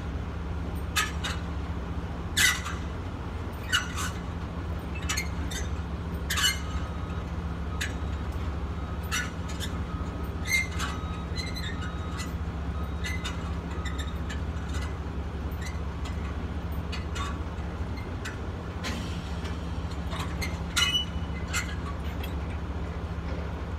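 Truck engine idling with a steady low drone, with light clinks and taps scattered through it, several of them close together near the end.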